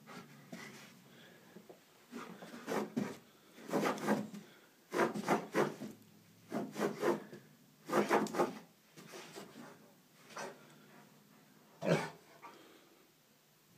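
An Alaskan Malamute making short rasping grumbles and huffs in about half a dozen uneven bursts, the last one short and sharp, as it tries to get a cat to play.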